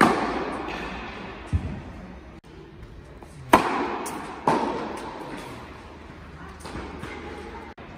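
Tennis racket striking the ball on a serve, a sharp pop about three and a half seconds in, with another hit at the start and the ball landing about a second after the serve. Each impact echoes in a large indoor tennis hall.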